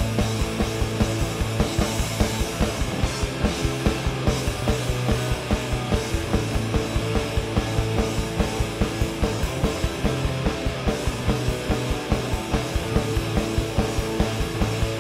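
Punk rock band playing live, with electric guitars and bass over a fast, steady drumbeat.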